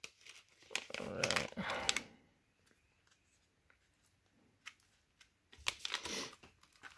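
Silver foil trading-card pack pouch crinkling as the stack of cards is pulled out and handled, in two short bursts, about a second in and again near the end, with a few light clicks between.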